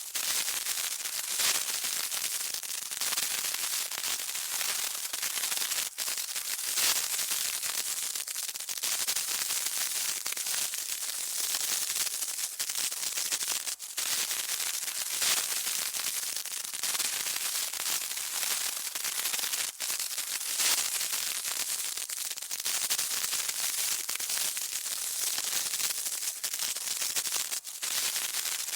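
Burning fuse sizzling: a continuous crackling hiss, broken by a brief dip a few times.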